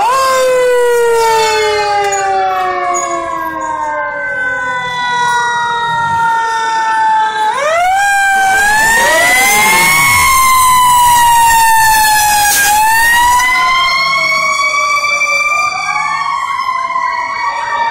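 Several fire engine sirens wailing at once as a line of trucks passes close by, their overlapping pitches sliding up and down. About eight seconds in another siren winds up sharply, and one sweeps steeply down in pitch a couple of seconds later.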